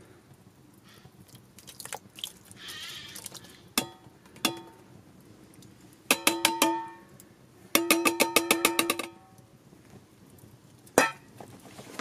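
Metal pan knocked against the rim of a metal cooking pot to empty the last of a sauce into it: two quick runs of clanking, ringing strikes, after a few lighter clinks and a short slide of sauce. Near the end comes one loud clank as the pan is set down on stone.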